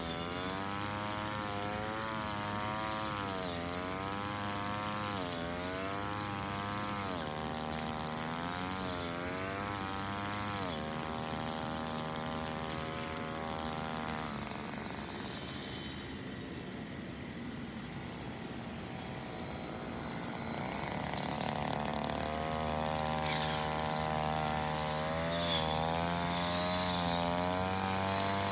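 Engine brush cutter running while cutting grass, its engine speed rising and dipping over and over, then holding steady. Near the middle it drops lower and quieter before coming back up to a steady high speed.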